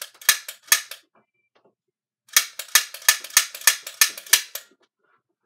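Red Sharpshooter toy disc blaster firing, each shot a sharp plastic snap. Three shots in the first second, a short pause, then a fast run of about ten shots at roughly four a second.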